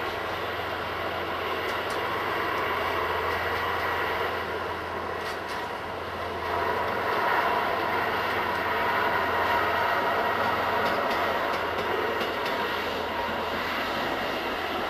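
Diesel locomotive running at a distance as it moves through the freight yard: a steady engine drone with a constant low hum, growing a little louder about halfway through.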